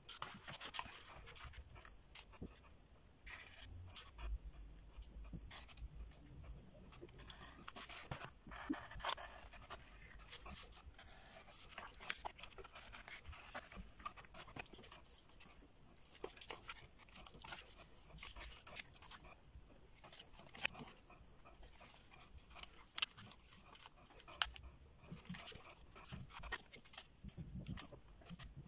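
Paper and cardboard being handled and cut by hand on a work board: faint rustling, scraping and scattered small clicks.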